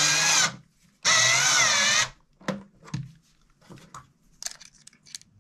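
Wenn cordless electric screwdriver driving a T25 screw tight into the hardwood bench frame: two bursts of motor whir, the first cutting off about half a second in, the second lasting about a second, its pitch wavering under load. A few light clicks and taps of handling follow.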